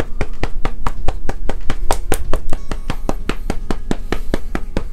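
Velour powder puff patted rapidly against the face, about seven quick pats a second, pressing loose powder into the skin.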